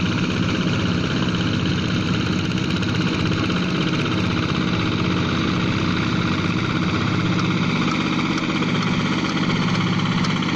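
Two walking hand tractors' single-cylinder diesel engines running under load while working a flooded rice paddy. Their pitches drift up and down against each other.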